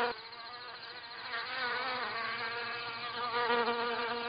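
Stingless bees buzzing in flight: a steady hum of several pitches, some wavering up and down. The hum is quieter for about the first second, then grows louder.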